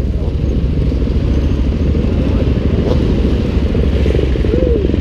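Husqvarna 701's big single-cylinder engine running loud and steady, heard close from a helmet camera, with other motorcycle engines around it. A short rising-and-falling pitch glide comes about four and a half seconds in.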